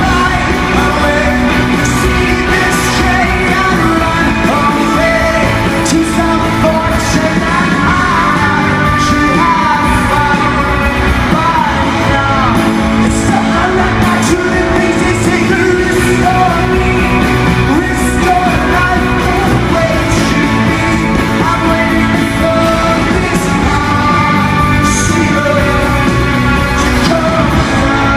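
Rock band playing live with a lead singer singing over the band, loud and continuous.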